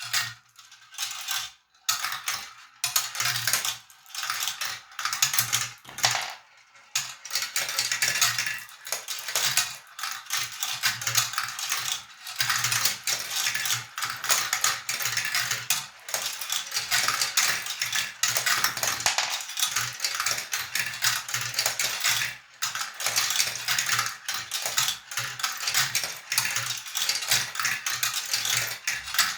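Glass marbles rolling and clattering along a marble run track: rapid, dense clicking and rattling. It comes in short runs with brief gaps at first, then goes on almost without a break from about seven seconds in.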